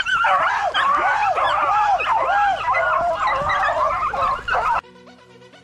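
A pack of rabbit-hunting hounds, beagles among them, baying and yelping together in quick overlapping rising-and-falling cries, the cry of dogs running a rabbit. It cuts off abruptly near the end, giving way to quiet music.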